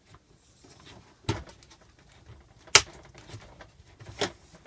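Three sharp plastic clicks, about a second and a half apart with the middle one loudest, as the side trim is worked onto the track of a Norcold RV refrigerator door.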